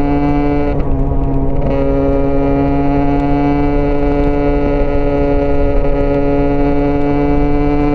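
Husqvarna dirt bike's single-cylinder engine running under steady throttle at high revs. The note breaks briefly about a second in, then holds a steady pitch that rises slightly.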